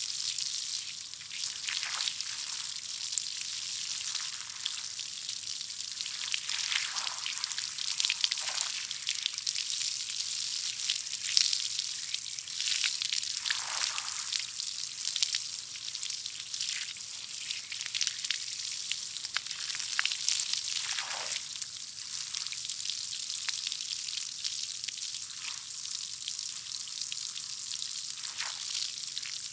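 Garden hose spraying water: a steady high hiss, with brief lower swishes every several seconds.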